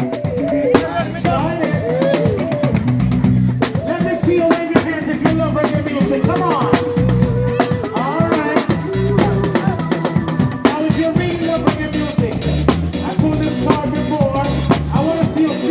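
Live band music: a drum kit keeping a steady beat with kick and snare hits, under a pulsing bass line and a melody.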